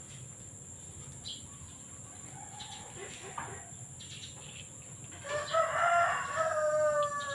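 A rooster crows once: a drawn-out call of about two seconds, starting about five seconds in and dropping slightly in pitch. Before it there are only faint clicks and handling noises.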